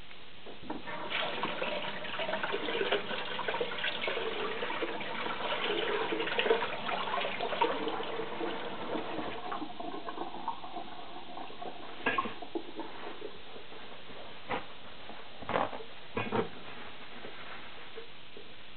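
Water running from a tap for several seconds, then stopping. A few light knocks or clacks follow near the end.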